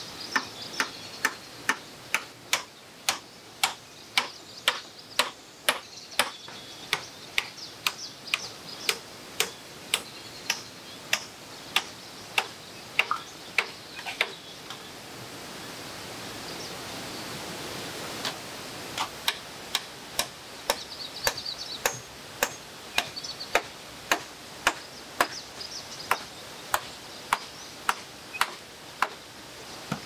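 Hammer blows on a bamboo ridge pole, fixing it along a bamboo roof: sharp, steady strikes about two a second. The strikes pause for about four seconds midway, then resume at the same pace over a steady forest hiss.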